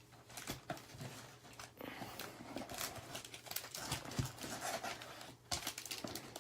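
Foil trading-card packs being pulled out of a cardboard hobby box and set down on a table: irregular rustling with light taps and clicks.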